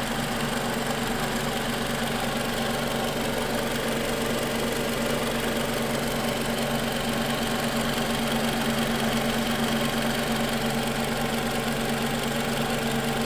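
2014 Toyota Camry engine idling steadily with a newly fitted alternator, run to check whether the noise blamed on the old, worn alternator is gone.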